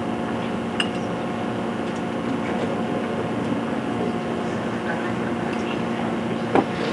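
Steady electrical hum with hiss, with a faint click about a second in and a sharper knock near the end.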